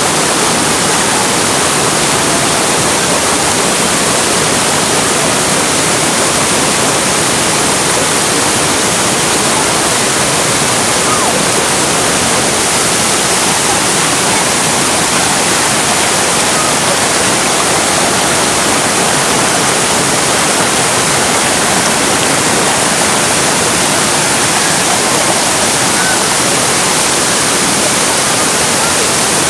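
Waterfall rushing: a loud, steady, unbroken roar of water cascading over rocks.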